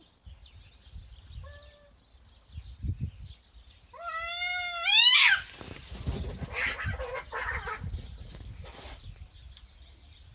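Cats in a territorial standoff: a short faint meow, then about four seconds in a loud, long yowl rising in pitch that breaks off into a harsh, noisy outburst lasting a few seconds.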